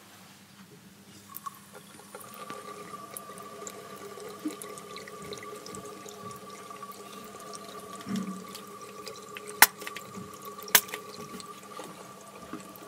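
Water running and dripping over a steady tone that starts about a second and a half in, with scattered small ticks. Two sharp, loud clicks come near the end, about a second apart.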